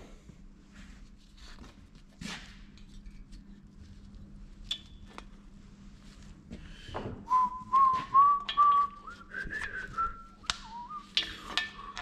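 A man whistling a tune to himself, starting about seven seconds in, over scattered light clicks and taps.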